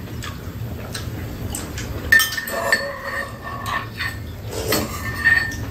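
Metal spoons clinking and scraping against ceramic bowls during a meal, with a sharp ringing tap about two seconds in and another near the end.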